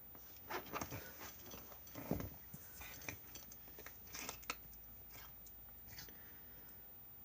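A cat eating its food: irregular crunching and chewing sounds, a noisy eater.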